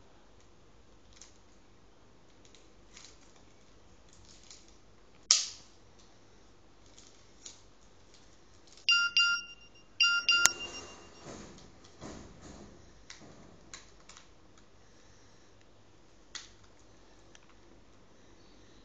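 A mobile phone being handled and tapped: scattered small clicks and taps, with one sharp loud click about five seconds in. About nine and ten seconds in there are two short bursts of electronic beeping, followed by a little rustling.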